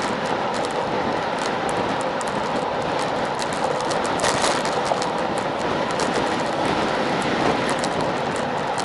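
Riding noise from a road bike: steady wind rush and tyre noise on asphalt with frequent small rattling clicks, and a short clatter about four seconds in as the bike rolls over a metal bridge expansion joint.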